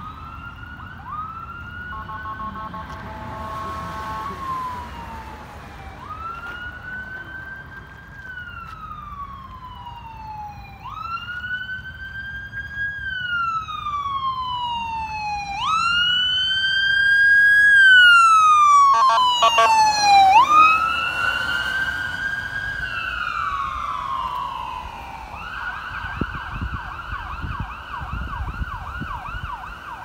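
Ambulance electronic siren on wail, rising and falling about every five seconds and growing louder as it approaches, with a few short horn honks as it passes about 19 seconds in. Near the end the siren switches to a fast yelp.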